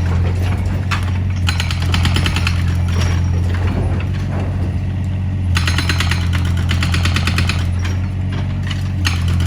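Excavator's diesel engine running steadily, with stretches of rapid rattling or hammering from the machine at work about a second and a half in, again around the middle, and near the end.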